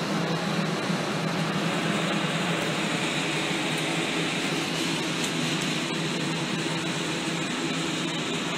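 Air-conditioning unit running steadily inside a small metal trailer: a constant low hum under an even hiss.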